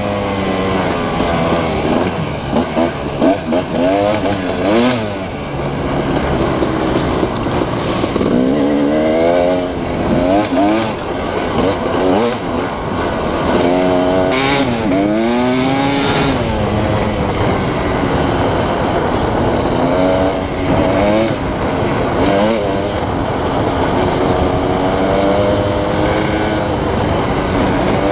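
Husqvarna 300 two-stroke dirt bike engine under way on a trail, its pitch rising and falling again and again as the throttle is opened and closed, heard from a camera mounted on the bike.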